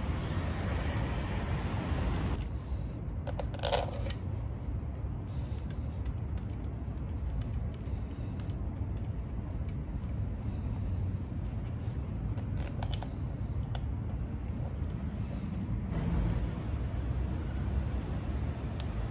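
Light metallic clicks and clinks of the oil filter cover bolts and a hex key on a Yamaha Serow 250's engine case as the new filter's cover is fitted. The loudest is a short ringing clink about four seconds in. Underneath is a steady low street rumble, with a passing car fading out in the first two seconds.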